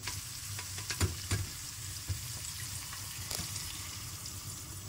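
Tripe-boiling broth poured from a stainless steel pot into a pot of stir-fried tripe, hissing and sizzling steadily as it hits the hot pan. A few light knocks come through, about a second in and again after three seconds.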